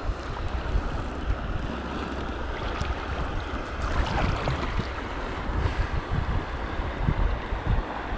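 Wind buffeting the microphone in irregular low thumps over the steady rush and lap of river water around an inflatable kayak moving downstream.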